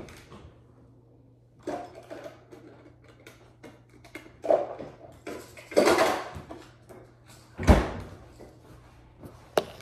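Supplement bottles and small objects being handled: several short rustling clatters and a sharp knock with a thud about three-quarters of the way through, as things are picked up and set down.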